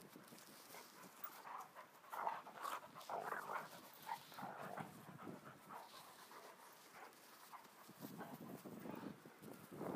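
Two dogs, a large adult and a black brindle puppy, play-wrestling: irregular bursts of dog noise, busiest in the first half.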